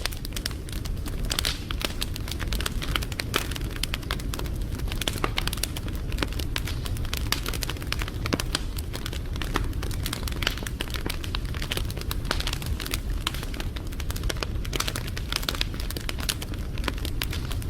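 Wood fire crackling: many small, irregular pops and snaps over a steady low rumble of burning.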